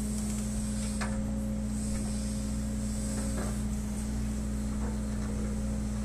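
SANY SY215 excavator running with a steady, unchanging hum as it swings and lowers its bucket, with two faint knocks about one second and three and a half seconds in.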